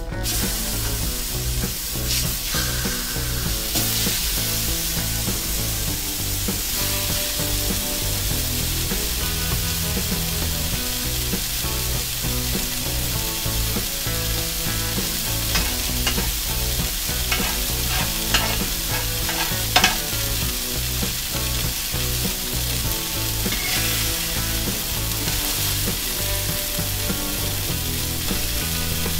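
Raw ground-beef burger patties sizzling on a hot propane Blackstone griddle, a steady frying hiss, with a brief click a little past the middle.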